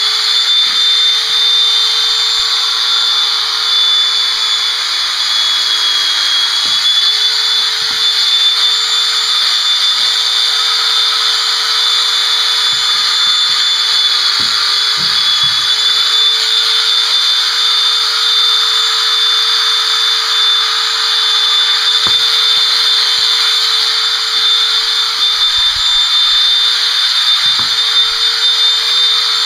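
Electric horse clippers running steadily through the coat: a continuous high motor whine that wavers slightly in pitch as the blades cut.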